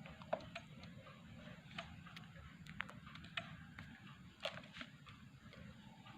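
Faint, irregular light clicks and taps, as of hands working with wiring and parts, over a low steady hum; the loudest click comes about four and a half seconds in.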